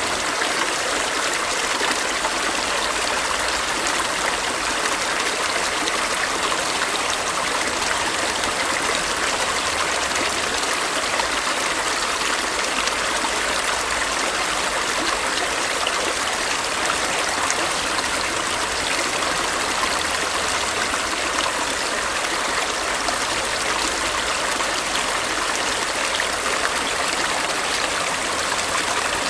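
Stream water flowing and splashing steadily, a constant rushing hiss.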